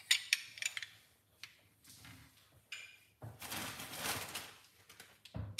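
Kitchenware being handled: a quick run of sharp clinks and knocks at the start, a few light knocks, then about a second and a half of rustling noise around the middle.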